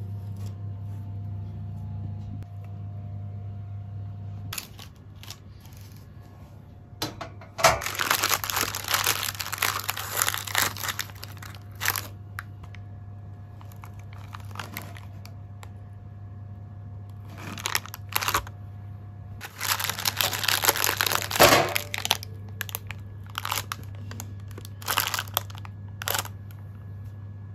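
Baking paper crinkling in several bursts of a few seconds each as a baked pound cake in its paper-lined loaf tin is handled and lifted out. A steady low hum from the oven runs underneath, louder during the first few seconds.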